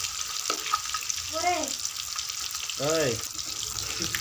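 Fish pieces deep-frying in hot oil, a steady sizzle with small clicks and scrapes of a slotted steel spoon stirring them in the pan. Two short voiced sounds that rise and fall in pitch come in about a second and a half in and again around three seconds, the second louder.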